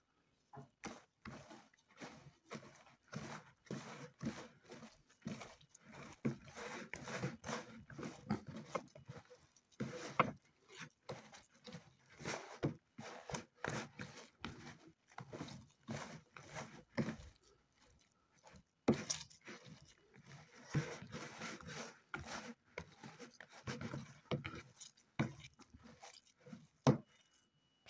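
Hands kneading raw köfte mixture of ground meat, breadcrumbs and egg in a plastic bowl: irregular wet squelching and slapping, with a few louder knocks.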